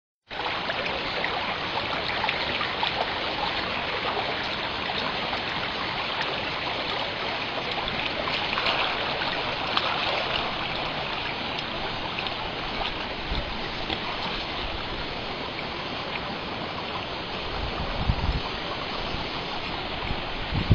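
A steady rushing noise like running water, with a few low thumps near the end.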